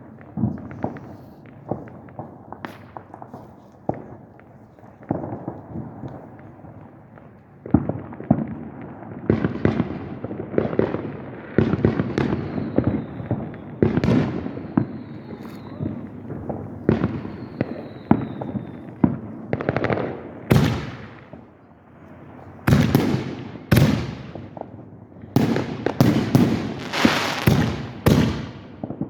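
Fireworks show: a run of aerial shell bangs and crackling, with a few high whistles falling in pitch around the middle. The bangs come faster and louder toward the end.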